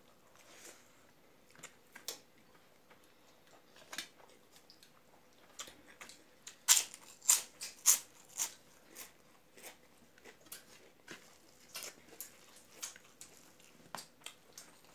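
Close-miked eating sounds of a mouthful of rice eaten by hand: scattered wet chewing clicks and lip smacks, with a run of four loud smacks about halfway through.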